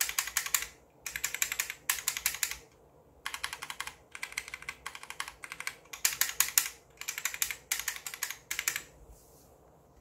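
Typing on an HP GK100 mechanical keyboard with Otemu Black switches and an aluminium plate: quick bursts of clacking keystrokes with short pauses between them, stopping about nine seconds in.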